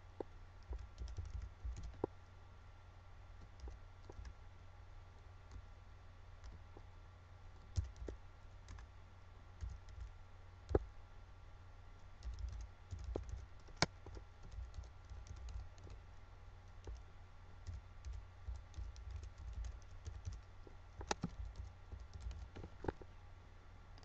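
Computer keyboard typing, faint, in irregular runs of key clicks with a few sharper clicks among them, over a steady low hum.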